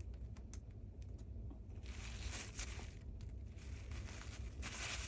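Scraping and rubbing on the plastic housing of a cordless vacuum's roller head as caked dust is cleaned out, with scattered light clicks and two longer scraping strokes, about two seconds in and near the end.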